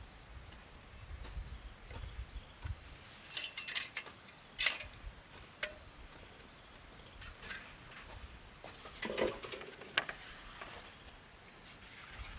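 Scattered light clicks and knocks, the sharpest about four and a half seconds in, over a quiet background.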